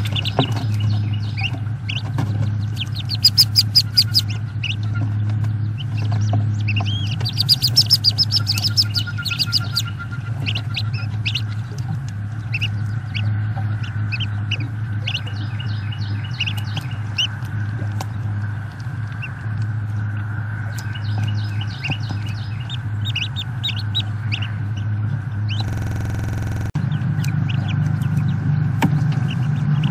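Wood duckling chicks peeping in the nest box, in quick runs of high chirps with scattered single peeps between. A steady low electrical hum runs under them, and a short hiss comes near the end.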